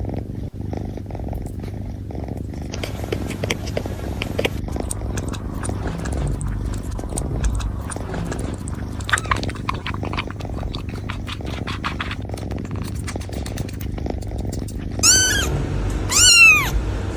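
Kittens lapping milk, with many quick wet clicks over a steady low purr. Two short high meows come near the end.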